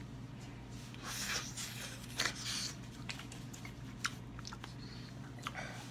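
Close-up chewing of a mouthful of pizza and hot dog sausage: scattered wet mouth clicks and smacks, with a couple of short noisy rushes, over a low steady hum.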